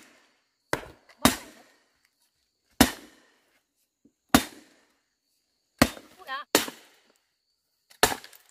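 A metal hoe chopping into stony earth: about seven sharp, separate blows at irregular intervals.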